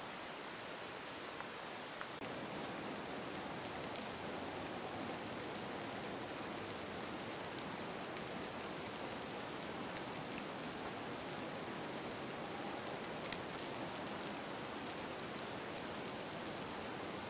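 Steady hiss of rain falling, with a few faint clicks.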